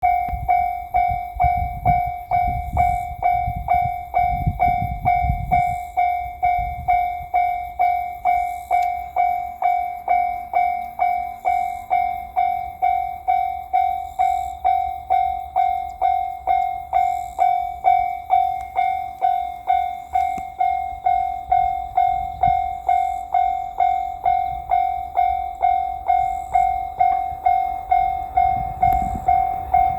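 Japanese level-crossing warning bell ringing steadily, about two clangs a second, each a single electronic bell tone. A low rumble comes under it during the first few seconds and again near the end.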